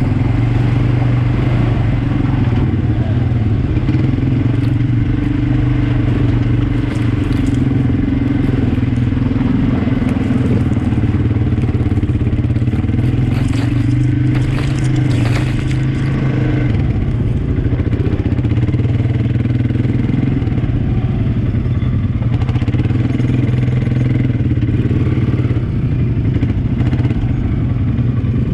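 ATV (quad bike) engine running steadily as it is ridden along a trail, with a cluster of rattles and knocks about halfway through.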